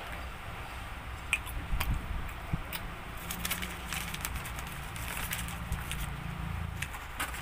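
Paper liner from a pizza box crinkling as it is lifted and folded by hand, a run of crackling rustles that is densest in the middle.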